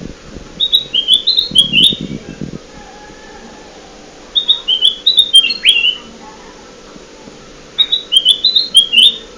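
Kutilang emas (a bulbul) singing three short phrases of quick, chirpy notes that step down in pitch, each about two seconds long with a pause of a second or two between them: a bird-lure song.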